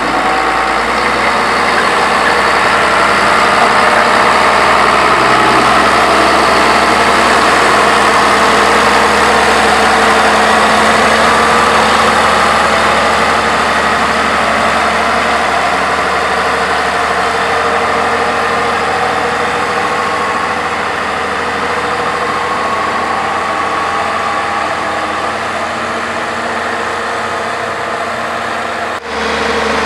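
Heavy diesel road-construction machinery running steadily, growing a little louder over the first few seconds and easing off slowly after the middle, with a brief dip near the end.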